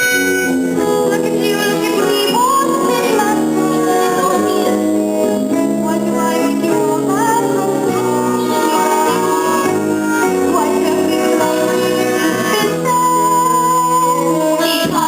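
Stage musical number: singing over instrumental accompaniment.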